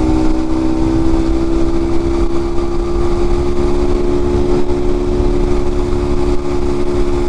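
Single-cylinder 127cc four-stroke motorcycle engine (a 154FMI Honda copy) running at a steady cruising speed under way, with wind rumbling on the microphone.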